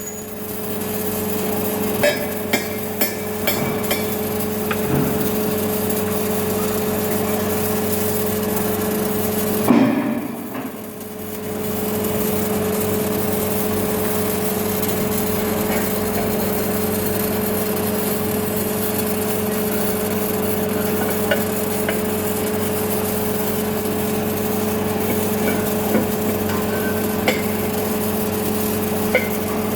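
Automatic welding machine running with a steady electrical hum, a few sharp clicks about two to four seconds in and a short drop in level about ten seconds in.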